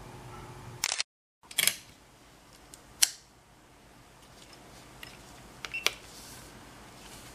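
Sharp metallic clicks of an RG 23 revolver's action as a digital trigger pull gauge pulls the single-action trigger: the hammer being cocked and snapping down. There are several clicks, the loudest about three seconds in and a quick pair near the end.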